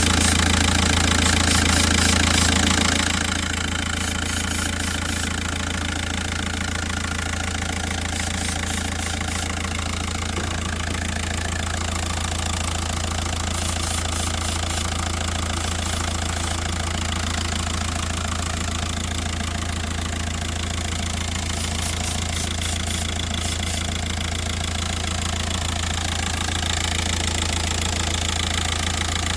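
VW Caddy 1.9 TDI diesel engine idling steadily with the bonnet open. The engine has an intake air system (boost) leak fault and is being watched for a change in idle. It drops a little in loudness about three seconds in, then holds steady.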